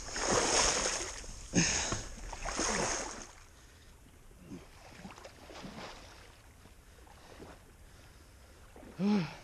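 Water splashing and sloshing as people wade through a shallow river, in three loud surges over the first three seconds, then quieter wading. A short vocal sound near the end.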